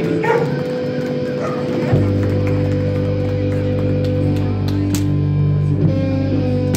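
Live band music led by electric guitar playing held notes, with a deep sustained low note coming in about two seconds in and holding under it.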